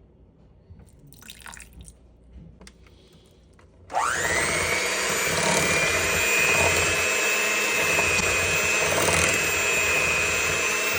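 An electric kitchen mixing appliance is switched on about four seconds in, mixing ingredients. Its motor whines up quickly to a steady high speed and runs on evenly.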